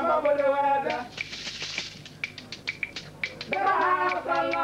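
A voice calling out in long, held, chant-like notes, once at the start and again near the end, with a scatter of sharp, irregular taps and a brief hiss in the gap between.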